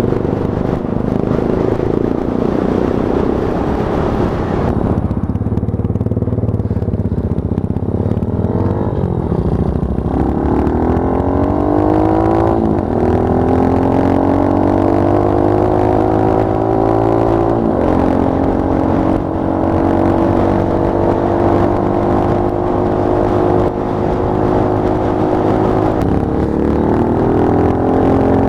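Monkey bike's small single-cylinder engine running under way. Its pitch climbs as it accelerates, then drops sharply twice in the middle as gears are changed, and afterwards holds fairly steady.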